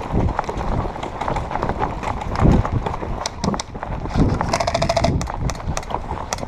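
Footsteps of an airsoft player running uphill over rough ground, with uneven thuds and gear rattling. About four and a half seconds in comes a short, rapid burst of airsoft fire.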